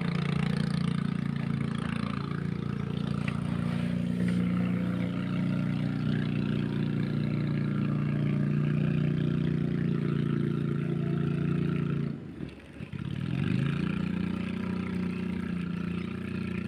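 A small engine running steadily; about twelve seconds in it drops away briefly, then picks up again with a rising pitch.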